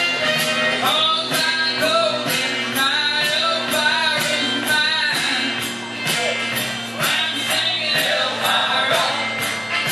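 Recorded country song with a singer over a steady beat of about two beats a second, played through a PA speaker.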